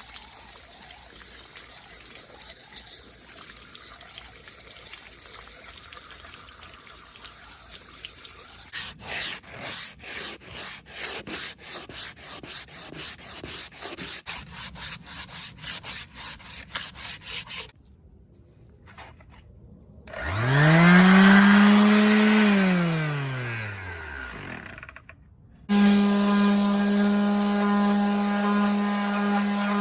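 Steady rubbing, then rhythmic back-and-forth rubbing strokes at about four a second, as in hand sanding or scrubbing. After a short pause an electric power tool spins up and coasts down, then starts again about five seconds later and runs steadily with a humming whine.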